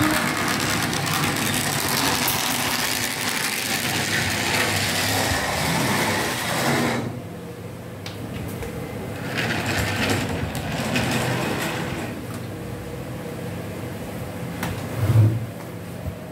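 Model railway steam tram, a DC analog model, running on its track: the small electric motor whirs and the wheels clatter over the rails. The sound cuts off suddenly about seven seconds in. A single knock follows near the end.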